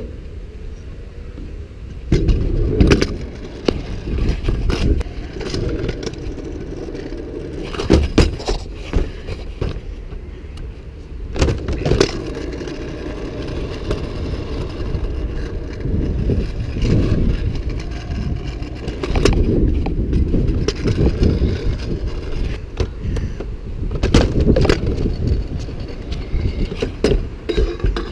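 Stunt scooter's small hard wheels rolling over rough asphalt and skatepark ramps, a continuous rumble, with several sharp knocks as the wheels hit ramp edges and land.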